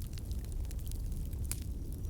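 Campfire burning: burning wood crackling with scattered sharp pops, one louder about one and a half seconds in, over a steady low rumble.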